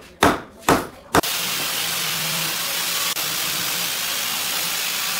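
Three sharp knocks about half a second apart on a pine table-base frame. From a little over a second in, a loud steady hiss takes over.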